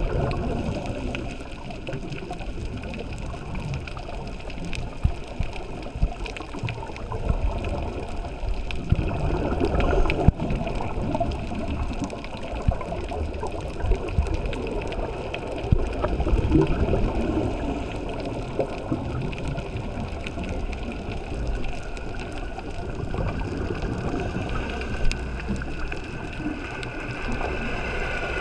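Muffled underwater noise picked up through a camera's waterproof housing, with the bubbling and gurgling of a scuba diver's exhaled air rising from the regulator. It swells and fades irregularly.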